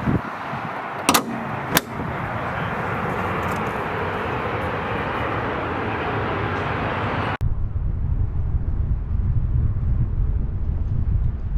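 Car on the move, with steady road and tyre noise and two sharp clicks about a second in. About seven seconds in the sound changes abruptly to a low, uneven rumble.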